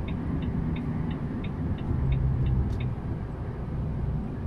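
Engine and road rumble of a vehicle cruising on a motorway, heard from inside the cab. A light regular ticking, about three a second, runs through the first two seconds and then fades.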